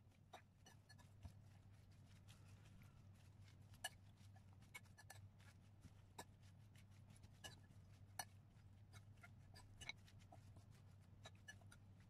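Faint, irregular clicks and light scrapes of a metal fork against a bowl as water spinach is tossed with its sauce.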